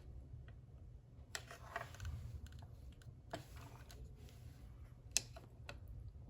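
Faint, scattered light clicks and short scrapes of computer hardware being handled during hard drive removal, the sharpest click about five seconds in.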